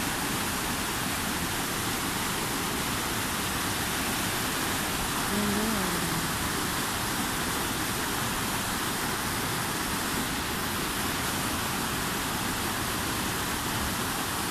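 Muddy floodwater rushing down a roadside channel and spilling over broken concrete, a steady, even rush of water. A voice calls out briefly about five seconds in.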